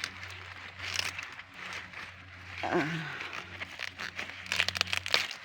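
Dry maize leaves and husk rustling and crackling as a small lower ear is twisted off the stalk, with a quick run of sharp crackles near the end.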